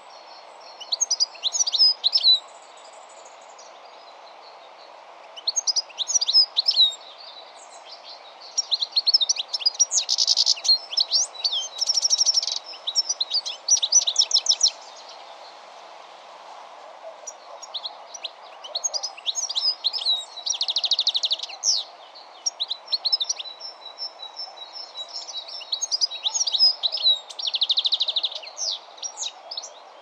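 European goldfinch singing: quick, twittering phrases mixed with buzzy, rasping notes, delivered in several bursts with pauses of a second or two between them. A steady background rush underlies the song.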